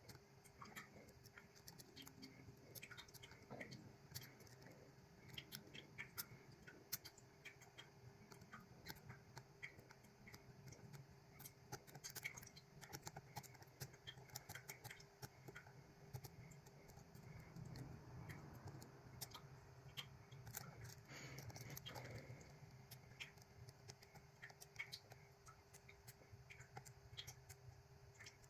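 Faint, irregular small clicks and scrapes of lock picks working the pins of a GOAL D9 pin-tumbler lock, setting pins one by one, over a low steady hum.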